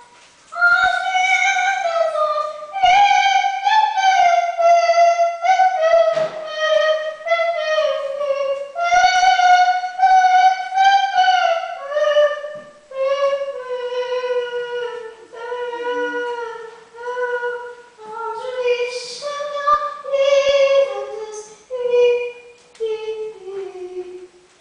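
A young girl singing high, drawn-out notes in an operatic style, with no accompaniment: phrases of a second or two that slide up and down in pitch, with short breaks between them.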